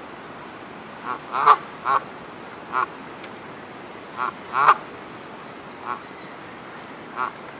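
Duck quacking: about ten short nasal quacks, some in quick pairs, at irregular intervals over a steady background hiss.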